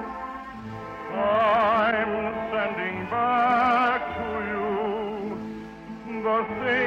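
Operatic singing in a high voice with wide vibrato, long held notes over an orchestral accompaniment.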